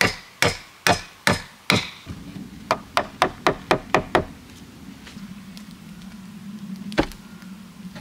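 Hammer blows: five heavy strikes about half a second apart, then a quicker run of seven lighter ones at about four a second, and a single strike near the end.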